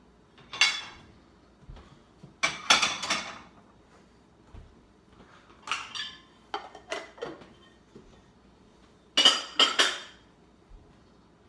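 Dishes and cutlery clattering as they are taken out of a dishwasher and put away: several short bursts of clinking and knocking, the loudest cluster near the end.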